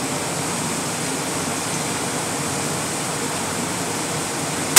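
Steady, even rushing noise with no distinct sounds standing out, and a faint steady high-pitched tone underneath.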